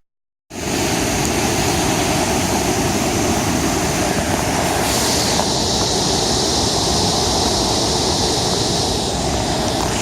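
Steady rushing roar of floodwater pouring out of a dam outlet through a partly opened bottom gate, churning the water to froth.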